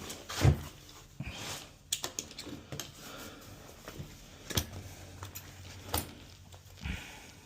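Lock hardware being handled: scattered sharp clicks and light metal clinks of lock cylinders and keys, with a louder knock about half a second in.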